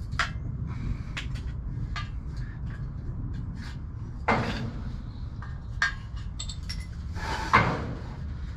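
Metal clinks and knocks from a steel shovel blade being handled and struck with a hammer to knock the broken handle stub out of its socket. Two louder strikes come about four and seven and a half seconds in, over a steady low rumble.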